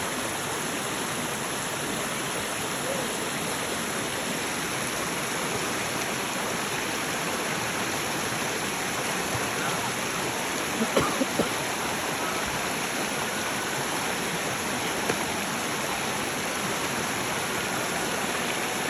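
Waterfall stream rushing steadily, with a few brief knocks a little past halfway.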